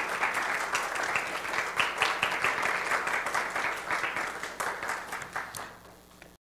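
Congregation applauding, fading away over the last couple of seconds and then cutting off abruptly.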